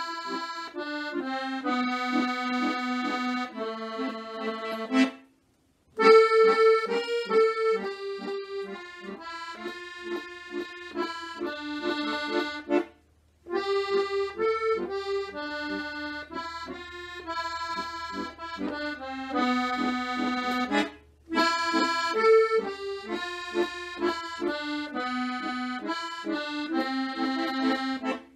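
Chromatic button accordion playing a tune solo, melody over bass notes and chords, with three short breaks between phrases.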